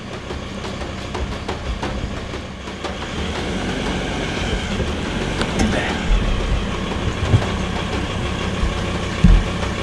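Open hunting vehicle driving slowly over rough, hilly ground: steady engine and road rumble with rattling. A few heavy jolts come in the second half, the loudest near the end, as it lurches over bumps.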